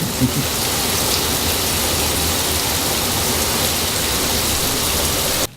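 Water splashing steadily onto a Logitech G213 Prodigy keyboard, a loud, even rushing that cuts off suddenly near the end.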